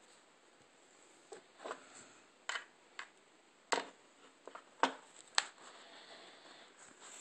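Handling noise from a hand-held camera: about eight light, irregular clicks and taps over a faint steady hiss, the sharpest ones near the middle.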